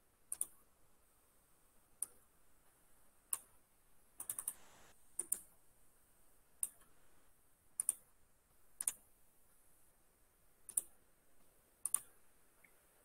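Computer mouse clicks: about a dozen sharp single clicks at irregular intervals, with a quick run of several clicks about four seconds in.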